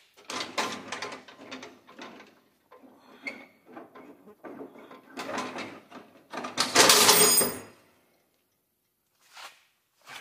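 Steel parts of a Craftsman snow plow's mount and blade clanking, scraping and rattling as they are worked loose from a garden tractor by hand. The clatter comes in uneven bursts, and the loudest, about six and a half seconds in, lasts about a second and ends with a short metallic ring.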